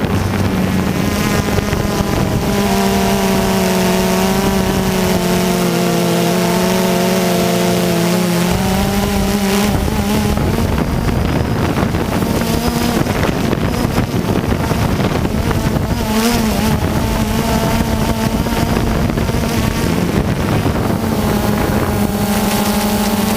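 Small engine of a radio-controlled model running loudly, with a steady whine that dips slightly between about 3 and 9 seconds in and returns near the end.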